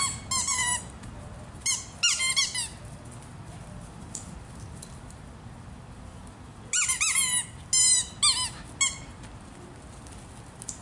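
Italian greyhound barking in play: bouts of rapid, high-pitched yips, one at the start, one about two seconds in, and a longer one from about seven to nine seconds in.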